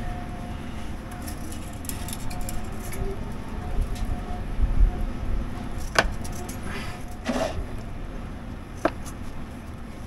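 Light handling noises from a long pick-up grabber and a hand torch being worked in a boat's engine bay, with a few sharp clicks, the first about six seconds in, over a steady low rumble.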